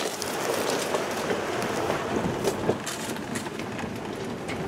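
Inside the cab of a Toyota driving slowly over a rough dirt track: a steady noise of tyres and body with frequent irregular rattles and clicks.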